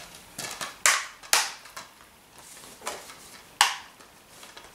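Blue plastic Blu-ray case being handled and closed: a string of sharp plastic clicks and knocks, the loudest about a second in, again half a second later, and a strong single snap near the end.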